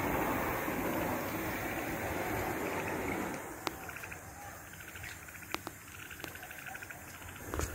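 Wind buffeting the phone's microphone for about the first three seconds, then quieter night-time outdoor ambience with faint rapid chirping and a few sharp clicks.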